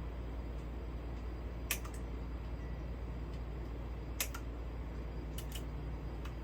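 Steady low hum from a V1 Engineering Lowrider 3 CNC router with its stepper motors powered, with a few light clicks at about two, four and five and a half seconds in.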